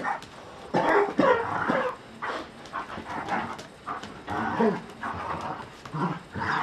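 Two Briards play-fighting, making a rapid string of short vocal outbursts at each other.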